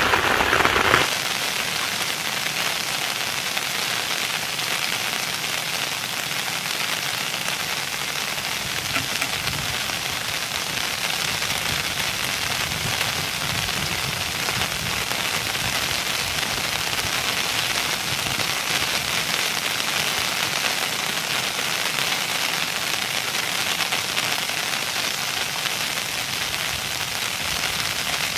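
Steady, even hiss of water with faint crackles.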